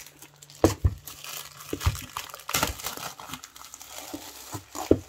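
Plastic shrink wrap crinkling as it is torn and peeled off a trading card box, in irregular crackles with a few sharper snaps.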